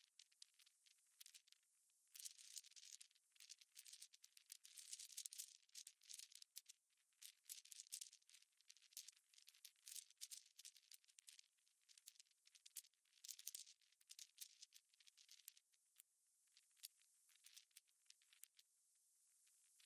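Near silence, with faint, irregular high-pitched crackling and hiss throughout.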